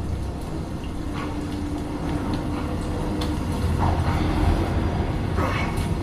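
Film soundtrack sound effects played back over Klipsch RP-280F floor-standing speakers: a steady low rumble under a held tone, with a few whooshing sweeps in the second half.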